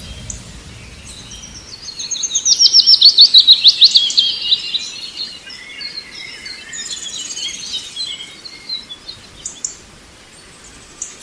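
Songbird singing: a loud, fast trill of repeated down-slurred notes, about eight a second, lasting some three seconds, followed by scattered softer chirps.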